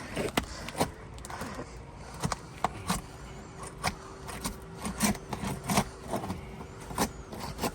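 Irregular sharp clicks, taps and scrapes as asphalt roof shingles are worked loose and pried up, with a faint steady hum underneath from about a second and a half in.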